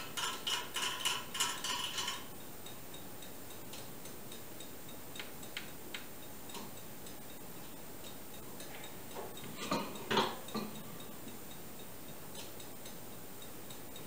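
Metal parts of a benchtop drill press being worked by hand at the chuck and feed handles: a quick run of metallic clicks for about two seconds, then a few scattered light clicks and a couple of louder knocks about ten seconds in.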